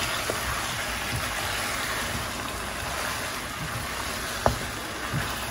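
Curry chicken sizzling steadily in a pot on a gas stove. A spatula knocks against the pot twice: faintly just after the start, and more sharply about four and a half seconds in.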